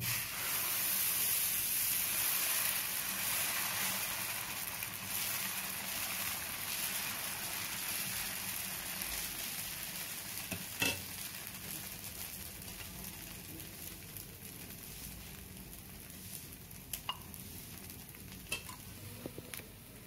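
Dosa batter sizzling on a hot cast-iron tawa while a ladle spreads it round the pan. The sizzle starts suddenly and slowly dies down as the batter sets, with a sharp tap about eleven seconds in.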